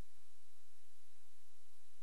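Steady electronic hiss with a low hum underneath and a faint steady high tone; no voice is heard.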